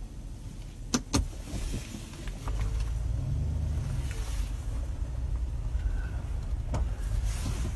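Road and engine rumble heard inside a moving car's cabin, growing louder about two and a half seconds in, with two sharp clicks about a second in.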